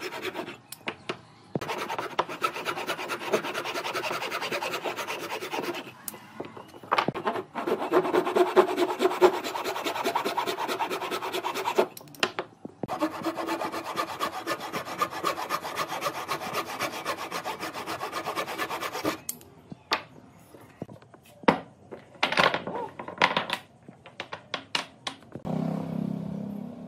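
Fine-toothed hand saw cutting into pine blocks in rapid back-and-forth strokes, in long stretches with short pauses. In the last third the sawing stops and scattered wooden knocks take over, with a short low hum near the end.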